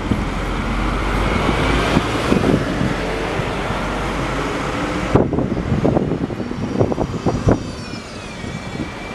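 A large vehicle runs past with a steady rumble. After a sudden cut about five seconds in come several knocks, then a high whine that falls in pitch near the end.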